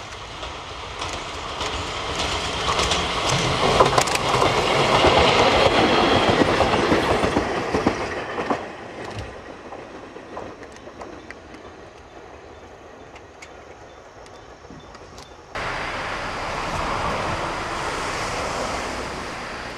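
Meitetsu Mo750 and Mo510 electric railcars, running coupled, pass close by. The wheels click over the rail joints; the train is loudest about four to seven seconds in and fades away after that. About fifteen seconds in, an abrupt cut brings a steadier, quieter noise.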